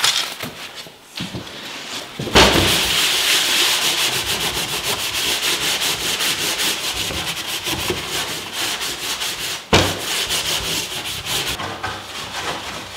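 Frost being scraped off a window pane by hand in rapid back-and-forth strokes, a harsh scratchy rasp. It starts in earnest a couple of seconds in, pauses briefly near the end, then stops.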